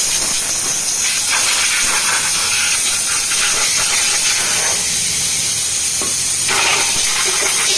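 High-pressure water jet from a spray gun hissing steadily as it blasts a bare four-cylinder engine block clean after machine-shop work.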